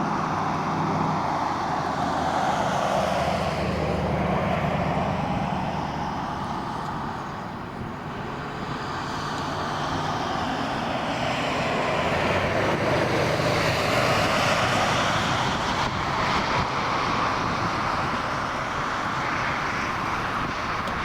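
A motor vehicle driving along a road: continuous road and engine noise with a low hum, easing off about eight seconds in and building again a few seconds later.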